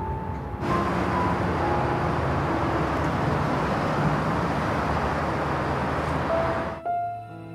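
Road traffic noise of a car driving past on a city street: a steady rush of tyres and engine that starts suddenly about a second in and cuts off shortly before the end. Soft background music plays underneath.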